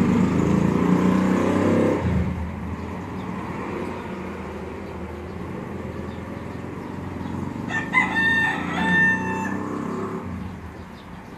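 A rooster crowing once, a call of about two seconds that comes about eight seconds in, over a low steady background rumble that is louder in the first two seconds.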